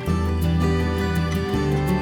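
Gentle background music: slow, sustained chords over a steady bass note, changing chord about every second and a half.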